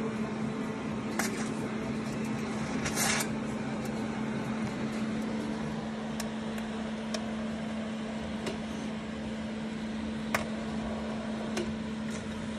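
TIG welder arc running while a patch is welded over a rust hole in a steel floor pan: a steady hum over an even hiss, with a few sharp ticks and a short burst of noise about three seconds in.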